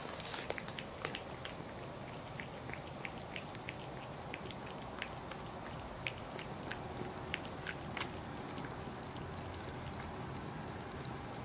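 An old cat eating soft tofu from a plate. Its licking and chewing make a run of small, irregular wet clicks, a few a second, which thin out near the end.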